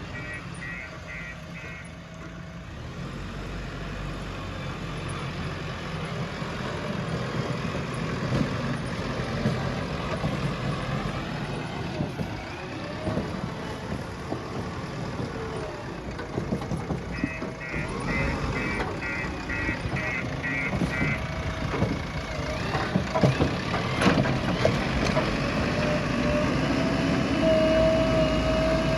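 Diesel engine of a JCB 3DX backhoe loader running under work, with a reversing alarm beeping about twice a second at the start and again for a few seconds past the middle. A few sharp knocks and clanks come through near the end.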